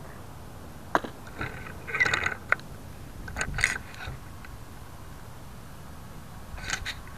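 Handling noise on a model plane's onboard camera as the plane is picked up and turned over: a sharp knock about a second in, then bursts of rustling and scraping with a few clicks, over a steady hiss. The electric motor is not running.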